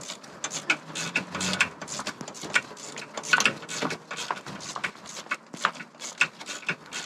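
Hand tools working the exhaust manifold nuts on the front of the engine: irregular metallic clicks and taps, several a second.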